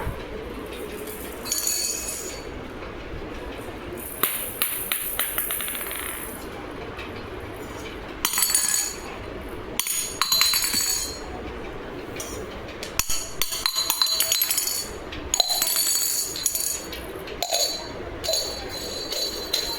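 Metal kitchen utensils clinking and rattling against each other in short, irregular bursts, with a bright ringing after several of them.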